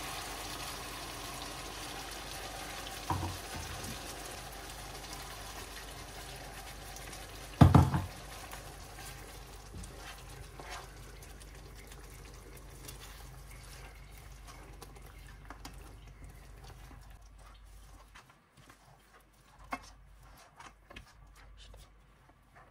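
Mutton curry sizzling in a pan as a ground herb paste is poured in and stirred with a silicone spatula; the sizzle fades gradually. A sharp knock sounds about eight seconds in, a smaller one around three seconds, and a few light taps near the end.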